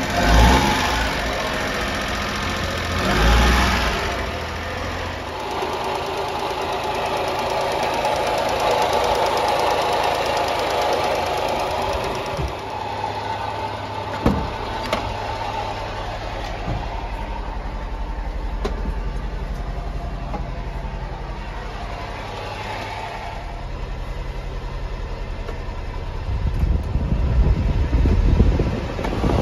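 Honda Acty truck's small three-cylinder engine idling steadily. A few sharp clicks come around the middle, as the door handle and latch are worked, and a louder low rumble rises near the end.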